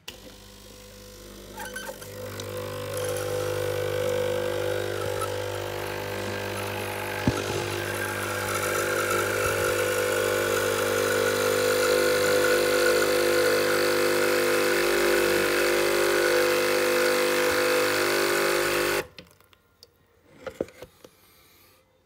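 Sage Nespresso Creatista Plus coffee machine's pump humming steadily through a descaling cycle, with water pouring into a plastic jug. The hum builds over the first few seconds and cuts off suddenly near the end, followed by a few soft clicks.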